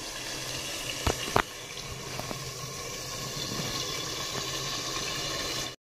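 Chicken curry sizzling and bubbling steadily in a steel-plate-covered kadai over a wood fire, with two sharp clicks a fraction of a second apart just over a second in. The sound cuts off suddenly at the end.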